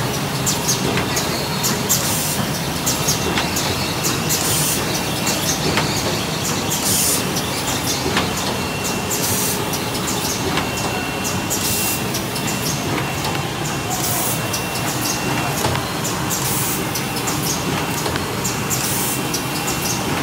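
MSFM-B automatic hardcover case making machine running steadily, its conveyors and rollers giving a continuous mechanical clatter, with short hisses every couple of seconds and occasional sharp clicks.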